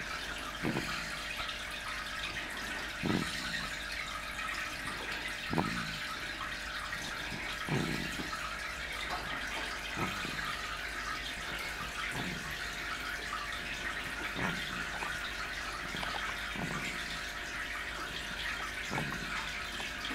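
Snoring: a short snore about every two seconds, nine in a row, over a steady background hiss.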